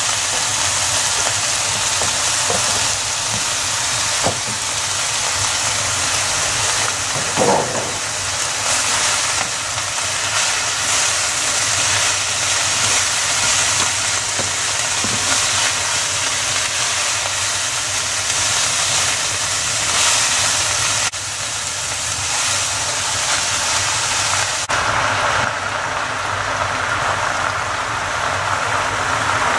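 Courgette strips and greens sizzling steadily in a hot frying pan, with a few soft knocks and scrapes from a wooden spatula stirring them. The sizzle changes tone about three-quarters of the way through.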